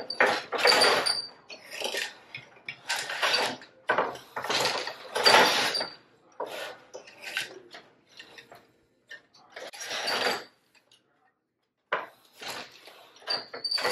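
Wooden floor loom in use: irregular clunks and clatters as the beater is swung against the cloth and the shafts shift for the next shed, with the shuttle passed through by hand in between. The clatter stops for about a second and a half near the end, then starts again.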